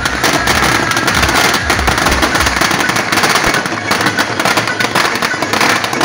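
A long string of firecrackers going off in rapid, unbroken cracks, with music underneath.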